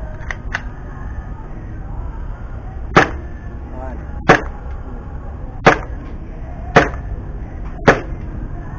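Gas blowback airsoft pistol (Glock 17 type) fired five times at a steady pace, about one sharp shot every 1.1 to 1.4 seconds, after a couple of light clicks near the start.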